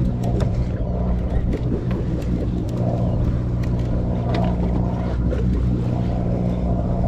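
Steady low engine drone of a sportfishing boat, an even hum that holds level throughout, with scattered light clicks and knocks over it.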